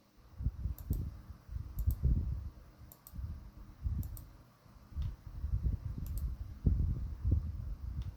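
Sharp clicks, roughly one a second with a gap near the middle, over repeated low bumps and handling noise.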